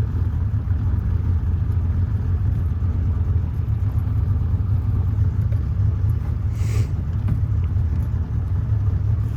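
Boat's outboard motor running steadily, a low continuous rumble, with a brief faint higher sound about six and a half seconds in.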